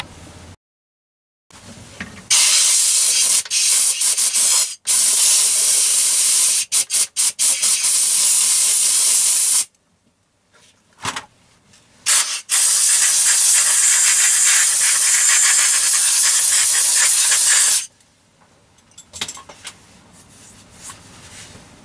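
Compressed-air blow gun blowing off a lathe's spindle nose. A long hissing blast is cut by quick flicks of the trigger, two short puffs follow, then a second steady blast of about five seconds.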